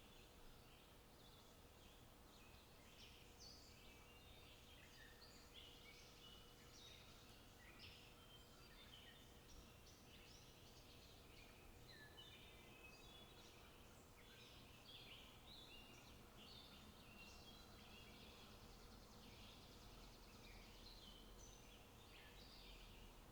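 Faint outdoor birdsong: many small birds chirping and singing in quick, overlapping short notes, over a low steady rumble.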